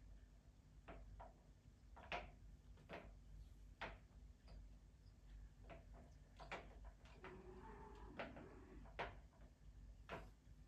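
Faint, irregular taps and clicks of a kitten's paws and claws scrabbling on a rug and tiled floor as it plays, in an otherwise quiet room, with a brief faint wavering squeak about eight seconds in.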